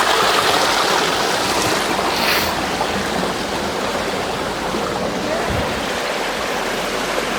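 Steady rush of flowing water, with a brief brighter hiss about two seconds in.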